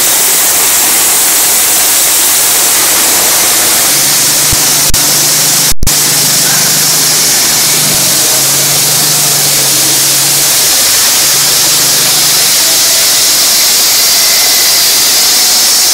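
Concrete saw cutting concrete: a loud, steady grinding hiss from the blade in the slab, with the saw's engine note faintly underneath.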